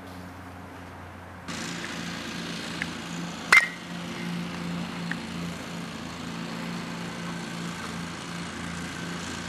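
A metal baseball bat strikes a pitched ball once, about a third of the way in: a sharp ping with a short ring. Under it runs a steady low hum that gets louder about a second and a half in.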